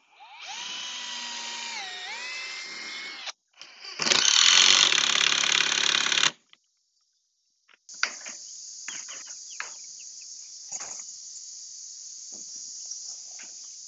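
Cordless drill driving screws through wire mesh into a timber frame in two runs, the motor's pitch dipping briefly under load in the first run and the second run louder. Then insects droning steadily, with light clicks and rattles of the wire mesh being handled.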